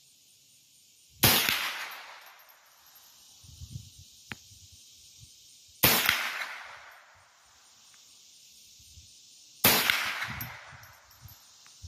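.22 caliber rifle fired three times, a few seconds apart, each shot followed by an echo that dies away over about a second and a half.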